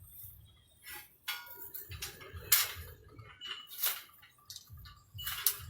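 Metal tools and parts clinking and knocking during wheel-rim repair work: about half a dozen irregular sharp clinks, the loudest about two and a half seconds in, a few leaving a short high ring.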